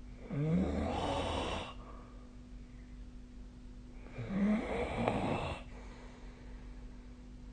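A sleeping person snoring: two snores about four seconds apart, each lasting over a second.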